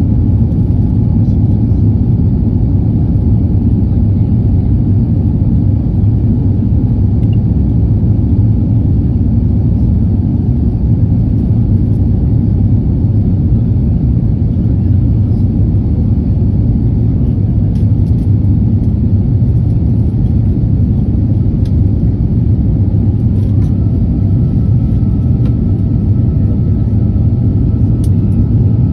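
Steady low cabin noise inside an Airbus A350 climbing after takeoff: its Rolls-Royce Trent XWB engines and the airflow, heard from a window seat. Near the end a faint thin tone rises and then holds.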